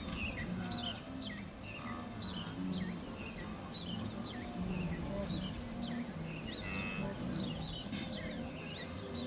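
Many short, rising-and-falling bird chirps repeating throughout, over a soft, low musical score.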